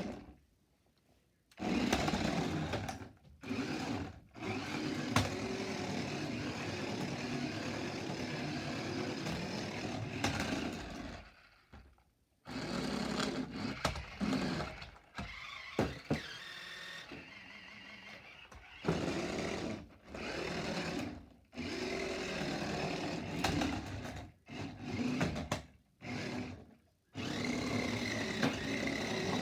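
Small battery-powered electric motor and plastic gears of an FAO Schwarz RC toy car whirring as it is driven, a long steady run followed by repeated short bursts with brief pauses in between.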